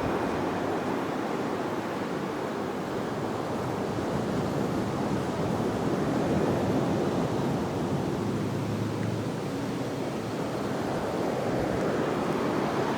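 Ocean surf on a sandy beach: a steady wash of breaking waves.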